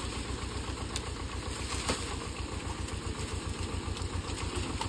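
Farm tractor's diesel engine running at low revs with a steady, even low chug as it pulls a trolley loaded with sugarcane.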